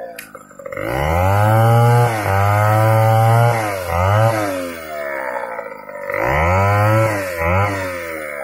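Two-stroke chainsaw revving. The engine climbs from idle about a second in and holds high for a couple of seconds. It then drops and blips twice, and revs up again for about a second and a half before easing back.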